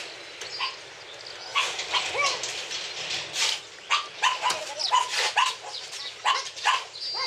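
A dog barking repeatedly in short, sharp barks, coming thick and fast from about a second and a half in.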